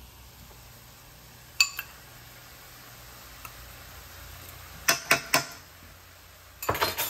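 Metal measuring spoon clinking against a ceramic bowl and pan as tablespoons of flour are scooped and tipped into the pan: a ringing double clink about a second and a half in, three quick taps about five seconds in, and a cluster of clicks at the end.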